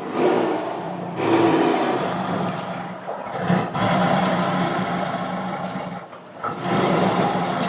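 A large animal roaring in several long, rough roars, separated by brief breaks.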